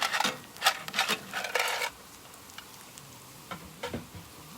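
Shellfish in their shells clattering against a hot pan, a dense run of sharp clicks for about two seconds, then a faint sizzle with a few scattered clicks.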